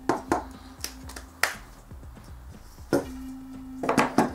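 Hard plastic and aluminium clicking and knocking as a 3D-printed corner piece is wiggled and slid onto aluminium extrusion rails over pre-loaded nuts. The sharp clicks come at irregular intervals, with several in quick succession near the end.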